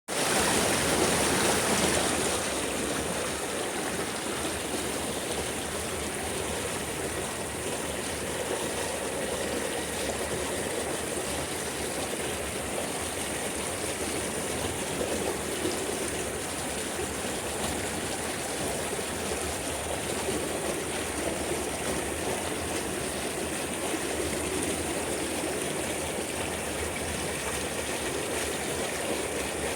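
Running water flowing steadily, a little louder in the first two seconds.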